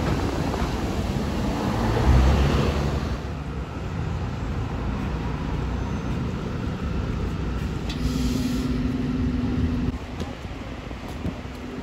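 A heavy vehicle's engine and running noise, loud for the first three seconds and then steadier and quieter, with a short hiss and a steady low drone about eight seconds in.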